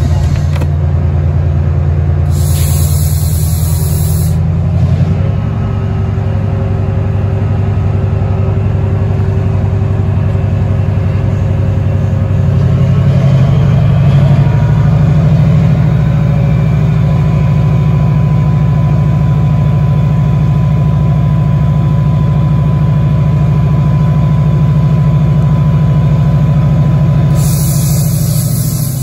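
Class 68 diesel-electric locomotive's Caterpillar V16 engine running under load as it moves slowly past, a heavy low drone that grows louder around halfway through. There are two short hisses of air, one a few seconds in and one near the end.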